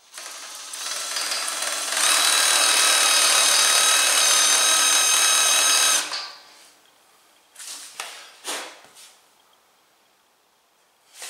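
Electric drill driving a half-inch masonry bit into a concrete slab through a steel socket used as a centring guide, drilling a pilot hole for a lift anchor. It builds up over about two seconds, runs steadily with a whine for about four seconds, then stops. A few short knocks follow.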